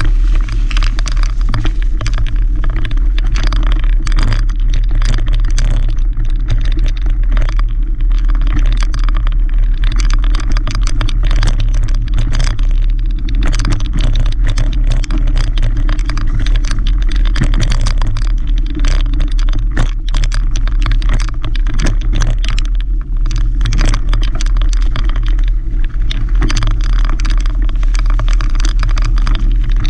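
Mountain bike being ridden over a leaf-covered dirt singletrack: a steady low rumble with continual irregular rattling and clatter from bumps in the trail.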